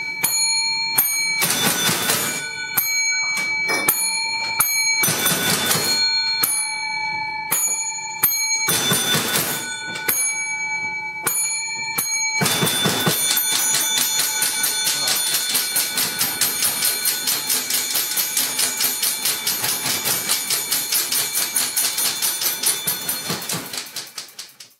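Typewriters played as percussion: bursts of key clatter with carriage-return bells ringing at several pitches. About halfway through it turns into a fast, even run of key strikes that fades out near the end.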